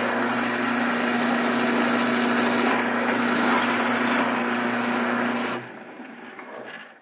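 Powermatic drill press running a long twist drill bit through a block of aluminum: a steady motor hum under the noise of the cut. The motor shuts off about five and a half seconds in and spins down. The hole is bored in one pass with a large bit, which leaves it rough.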